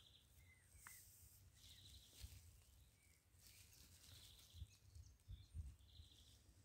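Near silence outdoors: scattered faint bird chirps and short sliding calls over a low wind rumble, with a few soft low thumps a little past halfway.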